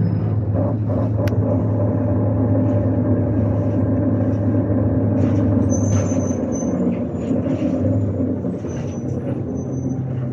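ADL/TransBus Enviro300 single-deck bus running with a steady low drone, easing off as it slows. From about halfway through, thin high-pitched squeals come and go. These are the poor noises this bus makes when slowing down.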